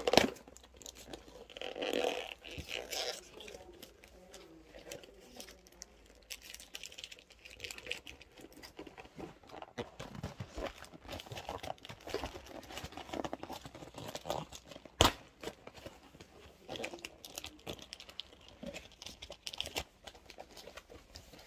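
Keyboard box and its packaging being handled and opened: intermittent rustling, crinkling and scraping, with one sharp knock about fifteen seconds in.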